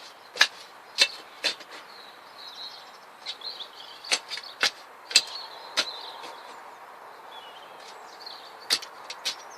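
Digging soil by hand with a garden tool: a string of sharp scrapes and knocks at irregular intervals, with small birds chirping in the background.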